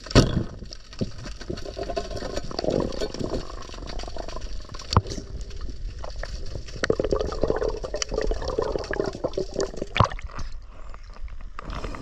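Muffled underwater river noise picked up by a submerged camera, with bubbling and water movement and a few sharp knocks scattered through it.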